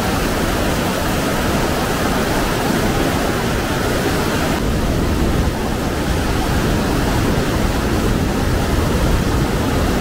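Rushing water of a mountain valley stream running high after days of rain: a loud, steady roar of water with no breaks.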